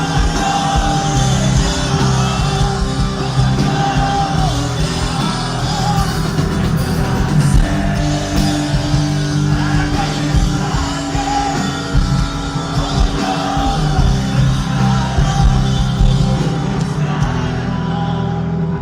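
Rock band playing live with a lead vocalist singing loudly over guitars, bass and drums.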